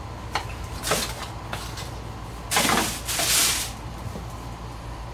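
Trading cards being taken out of an opened cardboard hobby box and handled, with a few light taps early on and a louder rustling scrape of card and packaging about halfway through.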